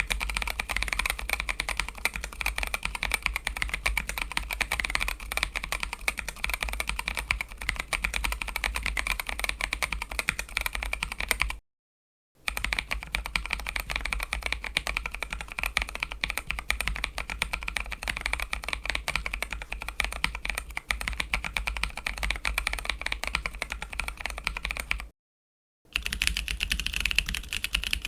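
Typing on a mechanical keyboard with Novelkeys Blueberry tactile switches: fast, continuous keystroke clacks in three stretches, each broken off by a short silence, over a steady low hum.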